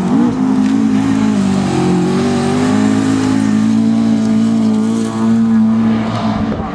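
Rally car, a Ford Escort Mk2, driven hard on a gravel stage. The engine note wavers briefly near the start, then is held at high revs and creeps upward as the car passes close by, falling near the end as it moves away.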